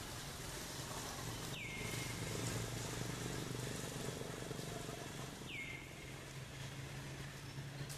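Outdoor forest ambience with a low steady hum. A short high call that slides down and then holds comes twice, about four seconds apart.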